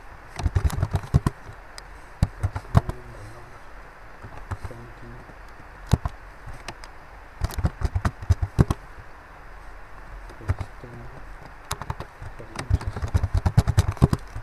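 Computer keyboard being typed on in short bursts of quick key clicks, with pauses of a second or more between entries.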